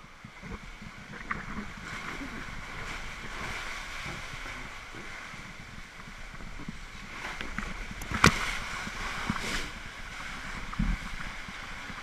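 Raft riding down a tube water slide: water rushing and hissing under and around it, with scattered small knocks, a sharp loud knock about eight seconds in and a smaller one near eleven seconds.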